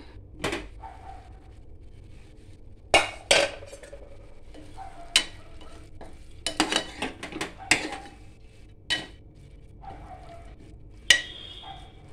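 A steel spoon stirring dry moong dal curry in an aluminium pressure cooker pot, knocking and scraping against the metal sides in irregular clinks, about ten of them, the pressure cooker lid having been taken off at the start.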